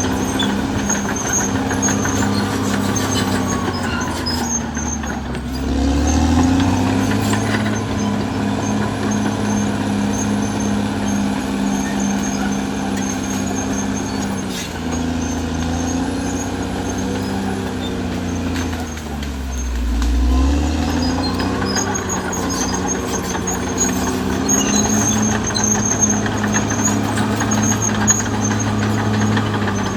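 Caterpillar D6R XL bulldozer's diesel engine running hard while working. Its pitch sags twice, about five seconds in and again about twenty seconds in, then climbs back as the load comes on and off.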